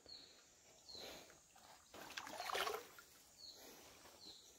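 Faint sloshing and splashing of stream water in a few soft swells, the strongest about two to three seconds in, with a short high chirp now and then.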